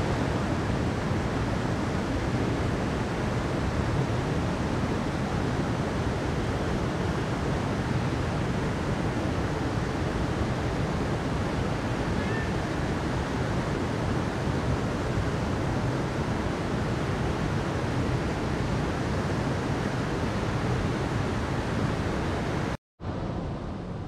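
Mountain river running over rocks: a steady rushing of water. It drops out for a moment near the end, then a softer rush of water follows.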